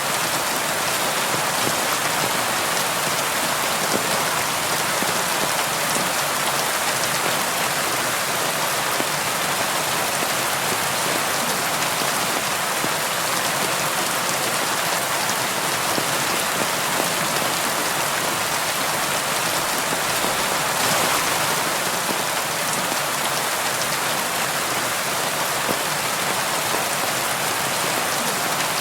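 Steady rain falling and pattering on a window, a dense even hiss.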